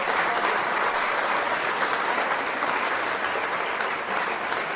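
Audience applauding steadily, easing slightly and then cutting off abruptly at the end.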